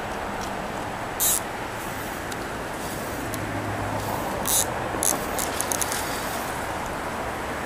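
Water splashing at the canal surface: a short splash about a second in, two more around four and a half and five seconds, then a quick flurry of small splashes just before six seconds, over a steady background rush.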